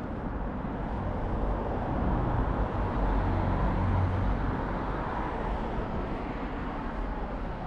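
Outdoor city traffic noise: a steady rumble of road vehicles, with one passing closer and louder through the middle and then fading.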